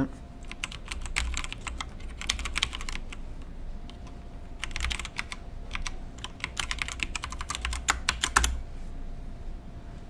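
Typing on a computer keyboard: two runs of quick keystrokes, the second starting after a pause of about a second and a half.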